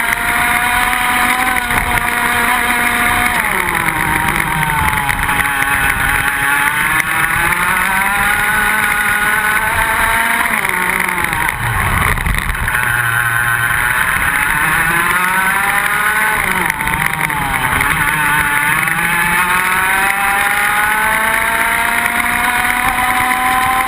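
Iame X30 125cc two-stroke kart engine at racing speed, heard onboard. Its pitch drops several times as the kart slows for corners and climbs again as it accelerates out and down the straight, rising steadily near the end.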